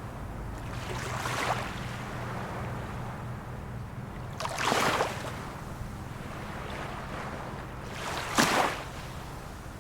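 Small waves of a calm sea washing onto the shore in three short rushes, one every three to four seconds, over a steady low hum.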